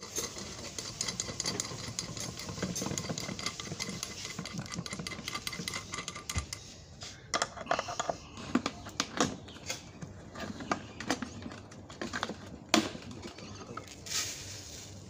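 Handling of small metal parts: rustling, then a run of light metallic clicks and taps as a nut is turned down on a threaded steel bolt to clamp a copper wire, with one sharper click. Water briefly pours into a plastic bucket near the end.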